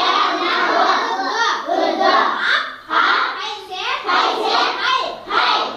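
Children's voices reciting together in a chanting, sing-song way, as a class repeating words in chorus.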